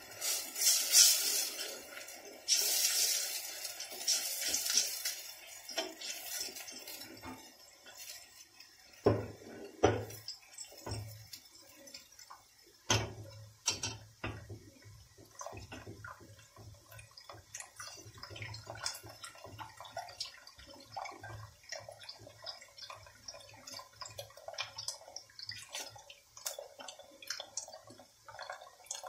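Liquid poured into a stainless steel pot in the first few seconds, a hissing splash. Then a wooden spoon stirs tarhana soup, with scattered knocks and scrapes against the pot.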